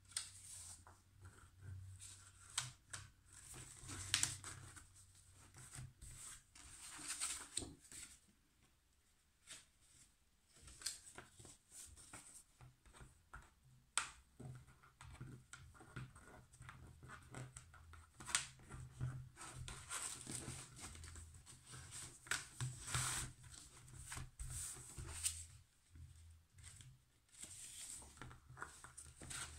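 Faint rustling and scraping of paper and card, with light taps and clicks, as handmade paper notebook inserts are handled and slid into a traveler's notebook cover. A low hum runs underneath.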